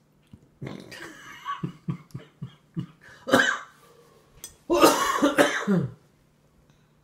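A person coughing: a run of short coughs, then a loud cough a little over three seconds in and a longer, louder coughing fit near the end.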